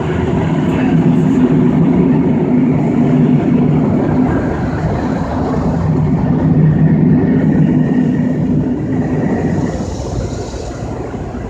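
Older Superior/Sonny's 'elephant' car wash dryers blowing air over the car: a loud, steady rush of air with a low motor hum, easing off slightly near the end.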